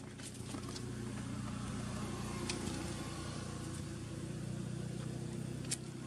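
An engine running steadily at a low, even pitch, with a few light clicks over it.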